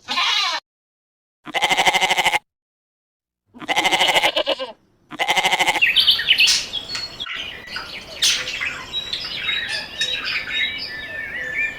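Four wavering bleats from livestock, each under a second long and separated by short silences. About six seconds in they give way to a busy chatter of high, short bird chirps.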